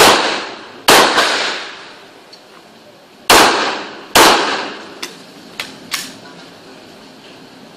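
Handgun shots: four loud shots, each with a long echo, a pair less than a second apart at the start and another pair a little over three seconds in. Several fainter sharp cracks follow around five to six seconds in.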